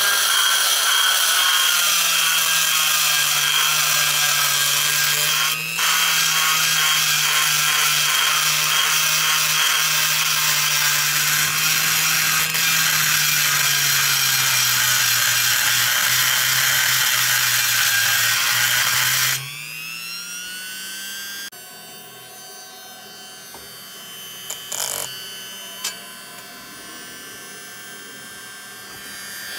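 Rotary tool grinding inside a runner of an aluminum GT40 lower intake with a long-shank bit: a loud high whine and grinding hiss, its speed wavering slightly. About 19 seconds in, the pitch rises sharply, and the tool cuts out about two seconds later, leaving a faint hum with a couple of light clicks.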